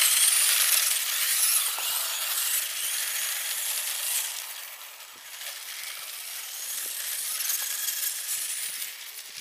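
Electric Traxxas Slash RC truck driving on snow: a hissing whir of its motor and tyres churning snow. It fades as the truck runs off for about five seconds, swells again a couple of seconds later, then dies down near the end.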